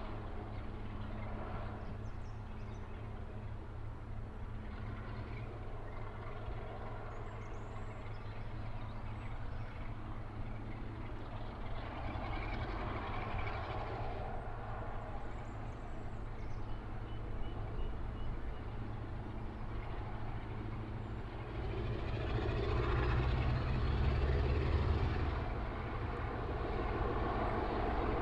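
BR Class 45 diesel-electric locomotive No. 45108 hauling a train of coaches: its Sulzer twin-bank diesel engine gives a steady low drone. The drone swells louder about three quarters of the way through as the locomotive draws nearer.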